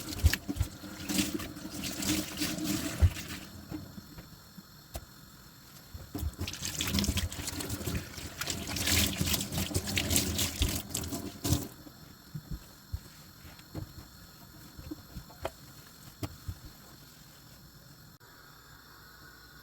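Tap water running into a kitchen sink as dishes are washed and rinsed, in two spells: one in the first few seconds and one from about six to twelve seconds in, with dishes knocking now and then. After that the water stops and only a few small knocks are left.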